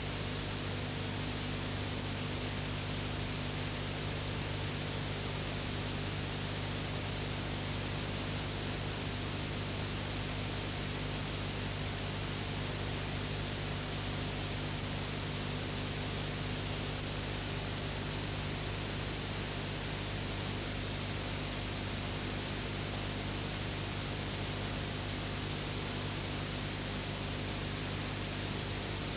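Steady hiss with a low hum and nothing else: the background noise of a silent film's video transfer.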